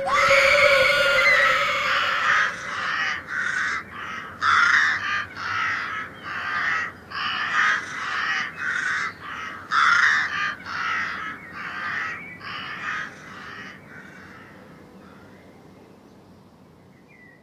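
A gull calling: one longer opening note, then a long run of short repeated calls at about two a second, which fade out a few seconds before the end.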